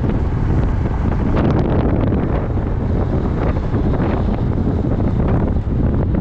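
Strong wind buffeting the microphone on a moving Yamaha Majesty 400 scooter, a heavy rumbling gust noise, with the scooter's engine and road noise underneath.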